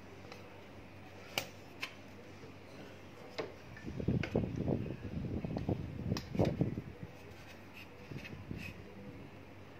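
Rubber spark plug wire boots being pushed by hand back onto the Maruti 800's spark plugs: a few light clicks, then rubbing and knocking from about four to seven seconds in.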